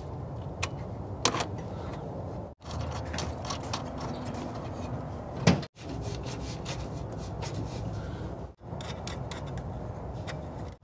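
Hands fitting a heater blower motor into its housing on the truck's firewall: scattered small clicks, rubs and knocks of metal and plastic parts, with one louder knock about five and a half seconds in. The sound cuts out briefly three times.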